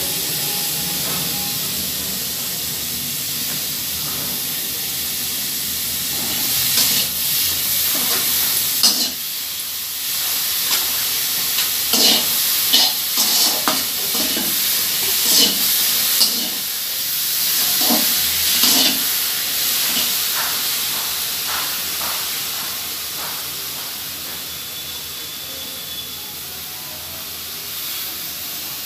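Sliced onions sizzling with a steady hiss in a hot, dry steel kadai with no oil. A spatula scrapes and stirs them against the metal pan repeatedly from about 7 to 19 seconds in.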